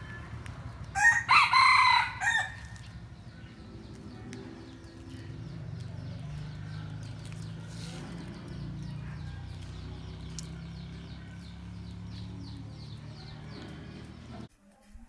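A rooster crows once, a loud call of about a second and a half starting about a second in, followed by a low steady hum.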